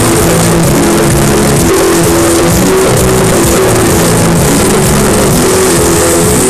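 Music played at very high volume through a car-audio sound trailer's speaker system, a dense steady wall of sound with a repeating melody.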